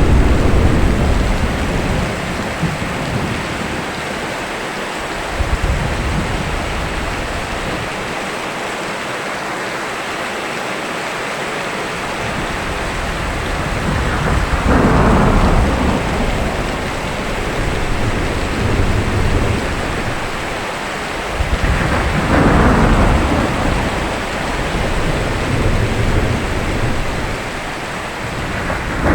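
Steady rain in a thunderstorm, with thunder rumbling low throughout. Two louder thunderclaps, about halfway and two-thirds through, each fall from a sharp crack into a low roll.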